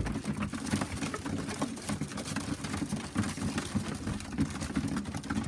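Young pigeons pecking grain from a feeder: a dense, irregular patter of rapid small clicks as beaks strike seed and the feeder.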